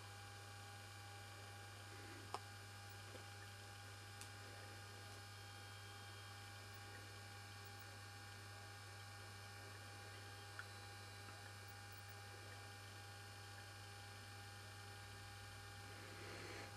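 Near silence with a steady low hum, broken by a faint click about two seconds in.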